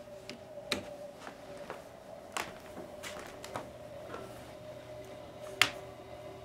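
Radiator making sharp, irregular clicks, about nine over several seconds with the loudest near the end, over a faint steady hum.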